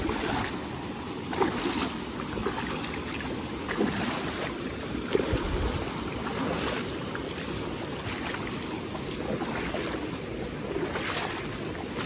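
Shallow river rushing over stones, with a few separate splashes as feet wade through the water.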